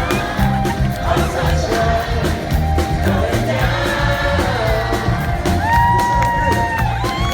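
Live band playing an upbeat song with a steady beat and singing. Near the end a high sung note is held for about a second.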